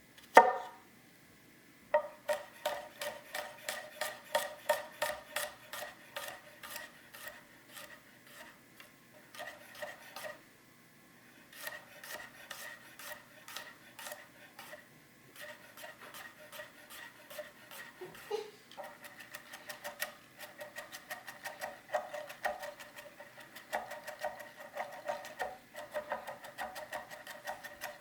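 280 mm carbon-steel gyuto knife cutting on a cutting board: a quick run of chopping strokes, about four to six a second, each with a short ring, stopping briefly twice.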